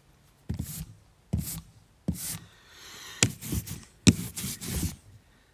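Hands handling cardboard trading-card blaster boxes on a cloth-covered table: a run of short rustles and knocks, with two sharper knocks a little past three and four seconds in.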